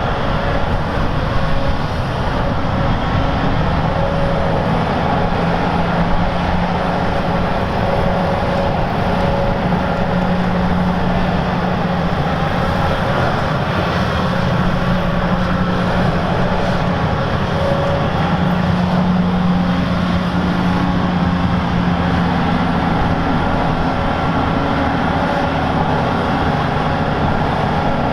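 Heavy diesel earthmoving machinery running steadily: a big excavator and articulated dump trucks at work, the engine note swelling twice as the machines work harder.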